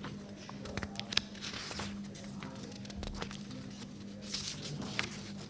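Café room noise between spoken pieces: a steady low hum with scattered light clicks and knocks.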